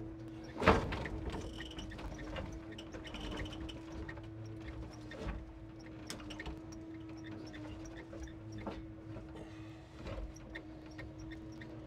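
Timber truck's engine running steadily to drive the loader crane's hydraulics, a constant hum. About a second in, a grapple-load of pine logs is dropped onto the load with a loud wooden thud, followed later by a few lighter knocks of logs settling.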